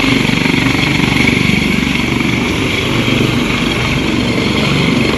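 Helicopter hovering low as it lifts off: the rotor blades beat rapidly over the steady noise of the turbine engines, loud and unbroken.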